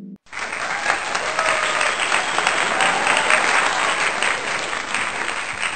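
Applause sound effect: a crowd clapping steadily. It starts abruptly just after the beginning and fades out near the end.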